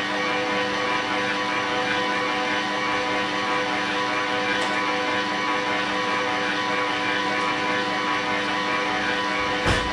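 Bosch stand mixer's motor running steadily as its dough hook kneads cake batter in the bowl, a constant humming drone. One short knock comes just before the end.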